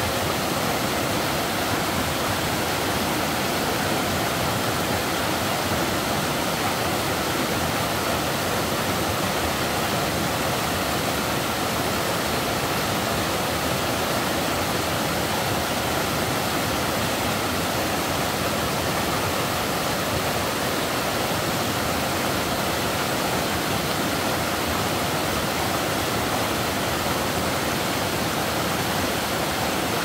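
Rocky mountain stream pouring over boulders in small cascades: a steady, unbroken rush of water.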